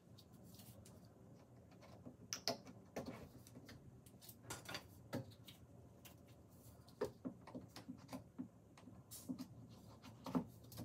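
Wooden bed slats being handled and knocked against each other and the frame, a scatter of light clacks and clicks, with the loudest knock near the end as a slat is set into the bed frame.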